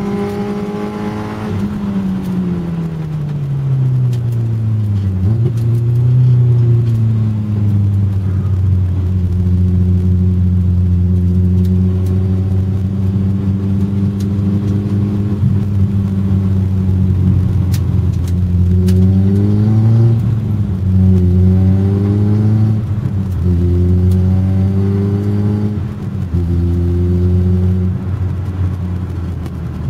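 Competition car's engine heard from inside the cabin on a hillclimb run. The revs fall over the first few seconds, hold steady for a long stretch, then climb and drop several times in quick succession about two-thirds of the way in, as the gears change under acceleration.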